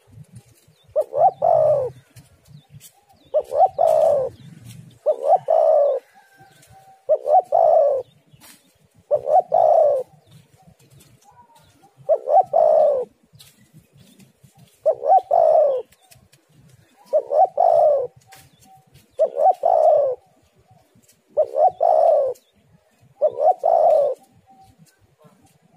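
Spotted dove (tekukur) cooing: eleven similar low call phrases, each about a second long, repeated roughly every two seconds.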